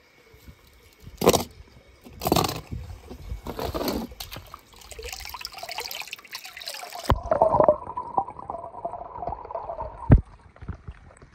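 Swimming-pool water splashing, with a few loud splashes in the first four seconds. About seven seconds in the sound turns muffled and gurgling, as if heard under water, and a sharp knock comes near the end.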